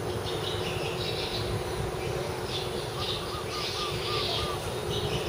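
Birds calling outdoors: high chirping comes and goes, and from about three seconds in a run of about six short, evenly spaced notes is heard. Underneath is a low rumble.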